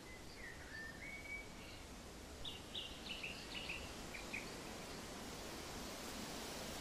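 Birds chirping over a steady soft hiss of ambient noise: a whistled call that dips and rises in the first second or so, then a quick run of short, high chirps from about two and a half seconds in.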